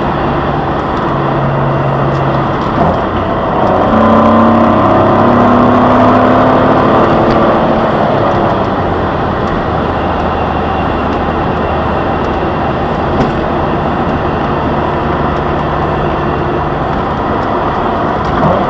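2003 Jaguar X-Type's 2.5-litre V6 heard from inside the cabin over steady tyre and road noise. The revs climb under acceleration for a few seconds, then hold steady at cruising speed. Near the end the revs drop for a gear change on the five-speed manual.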